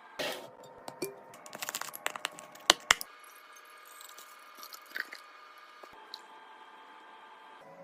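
Plastic packaging and containers handled during restocking: crinkling and tapping, with two sharp clicks close together about three seconds in.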